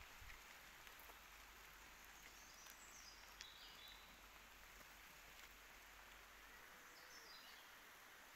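Near silence: faint steady woodland hiss, with two short high-pitched descending bird phrases, one about two and a half seconds in and another near the end.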